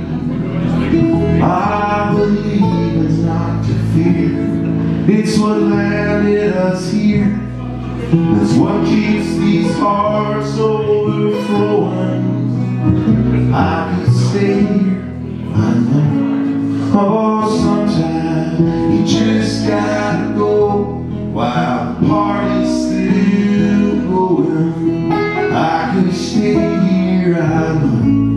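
Live folk song: acoustic guitar strummed steadily over upright double bass, with a man singing.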